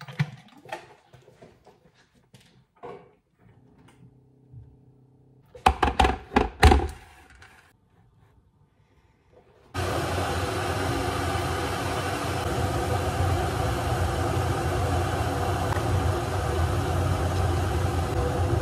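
Clicks and knocks of a glass electric kettle and crockery being handled on a stone kitchen counter, with a cluster of loud knocks about six seconds in. About ten seconds in, a loud, steady mechanical whir with a hum starts suddenly and keeps going.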